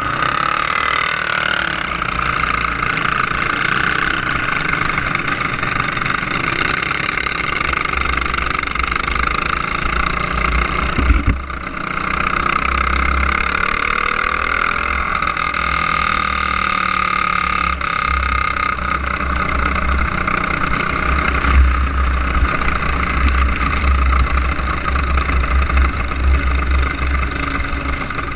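Onboard sound of a racing go-kart's engine running hard around a dirt oval, with a buzzing note that holds steady, falls off briefly about eleven seconds in and picks up again. Wind buffets the microphone underneath.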